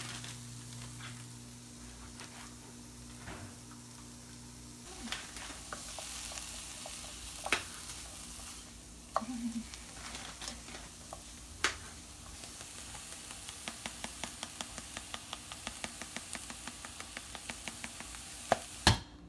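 Food sizzling and frying in a pan while being stirred, with a few sharp clicks and, in the second half, a quick run of small ticks. A low hum underneath stops about five seconds in.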